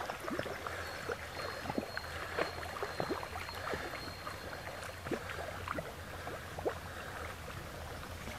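Water sloshing and splashing in small, irregular plips and slaps around a riverboard moving slowly down a calm river, heard from just above the surface.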